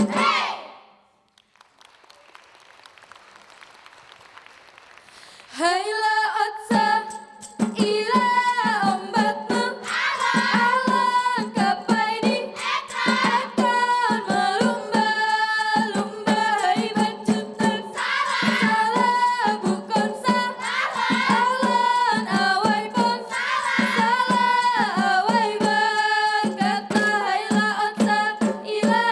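Clapping percussion stops sharply, a few seconds of hush follow, then a group of voices sings in unison over a fast, even beat of hand claps from the kneeling dancers.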